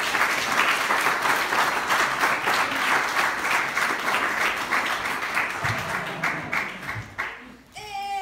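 An audience in a hall applauding, the clapping dying away about seven and a half seconds in; a voice starts just at the end.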